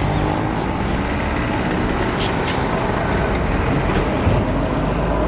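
Indian Railways WAP7 electric locomotive rolling slowly through a station yard: a steady low rumble of the locomotive and its wheels on the track, with two brief high ticks about two seconds in.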